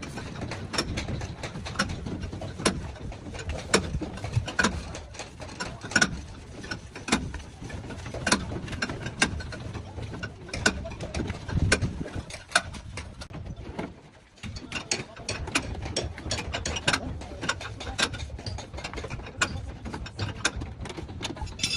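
Hand tools working on a car: a run of irregular sharp metallic clicks and knocks over a low rumble, with a short lull about fourteen seconds in.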